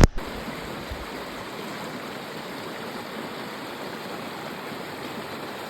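Steady rush of flowing stream water, after a sharp click at the very start.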